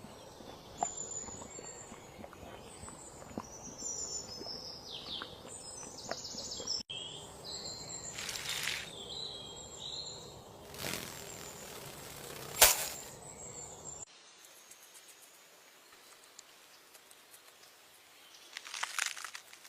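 Outdoor ambience with small birds chirping over a steady hiss, and a few short rushes of noise and a sharp click about two-thirds of the way through. The sound then drops abruptly to a quieter hiss, with one brief burst near the end.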